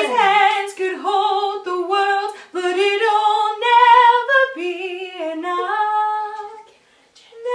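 A young woman singing a pop melody unaccompanied, her voice wavering on the held notes. She breaks off briefly about seven seconds in.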